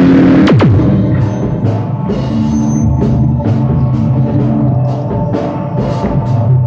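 Loud rock music with a full drum kit and steady cymbal strokes over low sustained bass notes, with a sharp downward pitch slide about half a second in. The sound is rough and overloaded.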